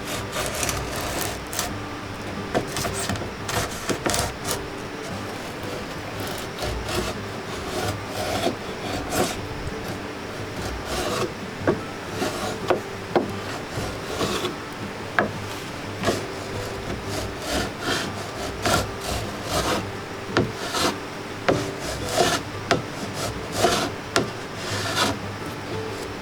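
Wood being worked by hand: steady scraping and rubbing broken by many irregular knocks and clicks.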